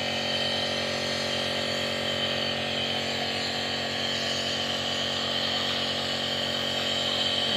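Compressor nebulizer running steadily: an even motor hum with a fast, regular pulsing from its piston pump.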